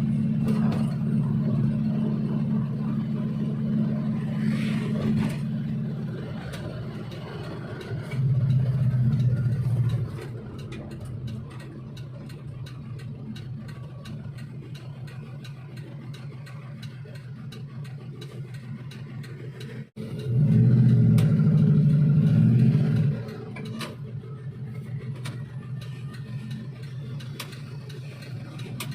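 Suzuki Espass van engine running with a steady low hum, revving up three times and settling back between revs, with a fast light ticking.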